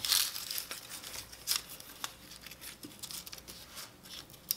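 A very thin, dry wood shaving rustling and crinkling under fingertips as it is laid and pressed flat over a coaster, with a few light clicks.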